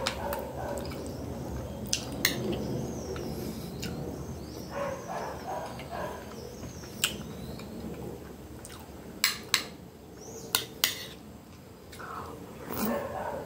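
Metal spoon clinking against a ceramic plate about ten times, sharpest in two quick pairs near the end, between close-up chewing and mouth sounds of a person eating a soft, saucy stew with rice.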